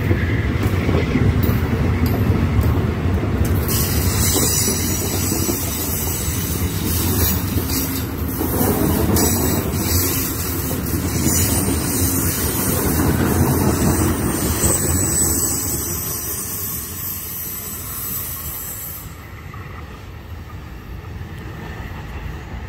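Amtrak stainless-steel passenger cars rolling past close by: a steady rumble of wheels on rail, with a high-pitched hiss over it from a few seconds in. The sound drops away near the end as the last car goes by.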